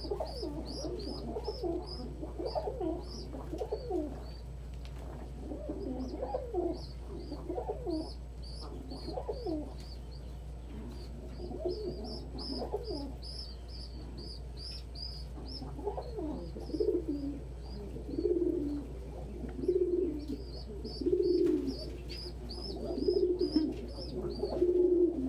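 Domestic pigeons cooing, with a rapid run of high, squeaky peeps over them. About two-thirds of the way through, one pigeon's coos grow louder and come regularly, roughly one every second and a half.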